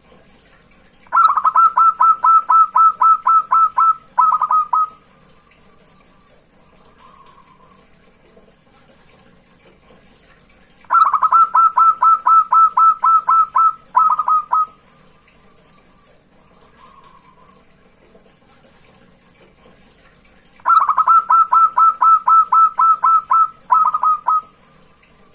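Local zebra dove (perkutut) singing: three song bouts about ten seconds apart. Each is a quick run of about a dozen clear cooing notes, roughly four a second, followed by a couple of separate notes and a faint trailing coo.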